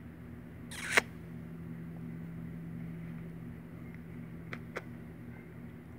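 Kitten purring, a low steady rumble that pulses with its breathing. A short loud breathy rush comes about a second in, and two faint clicks near the end.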